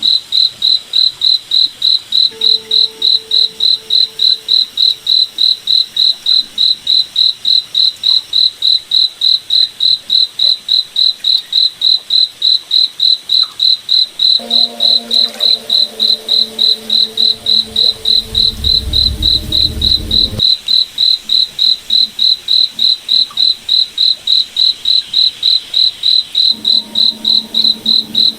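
A cricket chirping steadily, one high pulsing note repeated about four times a second without a break.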